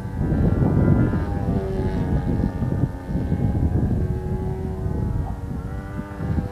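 An RC biplane's motor drones in flight, its pitch shifting slightly, over heavy wind rumble on the microphone.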